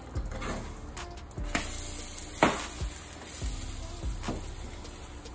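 Eggs sizzling in a frying pan, with a handful of sharp knocks and scrapes of a utensil against the pan.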